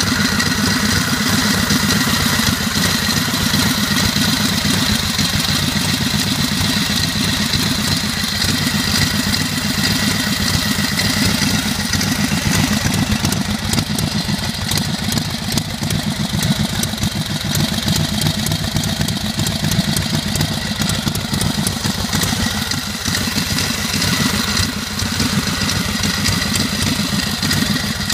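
1915 Harley-Davidson board-track racer engine running steadily on a test bench, its belt drive turning a large pulley. It fires in a rapid, even beat, with a steady high whine over it.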